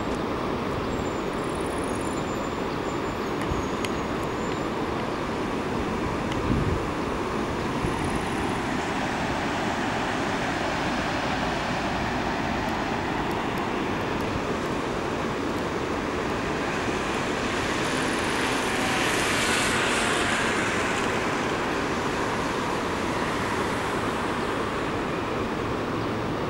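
Train running along the line with a steady rumble and rolling noise. There is a single knock about six and a half seconds in, and the noise swells briefly with more hiss around twenty seconds in.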